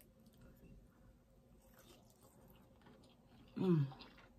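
Faint mouth and eating noises as a woman lifts and bites into a breaded fried fish fillet, with a few soft ticks, then a short hummed "mm" about three and a half seconds in.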